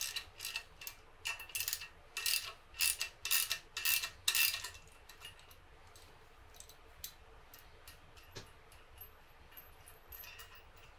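Ratchet wrench clicking in short runs, about two runs a second, for the first four or five seconds as it turns the screw of a bearing press tool driving out a spherical bearing that has broken loose from its retaining compound. Fainter metal ticks and clinks follow.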